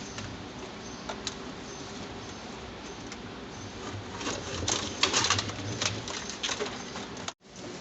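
Clicks, knocks and a burst of scraping, rattling handling noise about five seconds in, as a washing machine's agitator is worked loose. The sound cuts out for a moment near the end.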